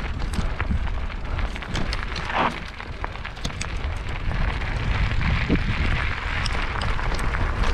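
Wind buffeting the action camera's microphone over the crunch of knobby mountain-bike tyres rolling fast on a dirt and gravel trail, with scattered sharp clicks and rattles.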